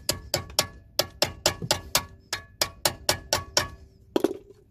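Steel screwdriver levering against a brake pad and caliper piston in a front brake caliper, giving a quick run of sharp metallic clicks, about four a second, each with a slight ring, then a short cluster of clicks near the end. The piston is being pushed back to free the pads from the disc.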